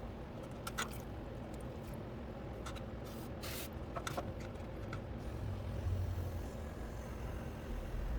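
Potter's wheel running with a steady low hum, with several brief wet sounds of hands and water working clay on the wheel between about one and five seconds in.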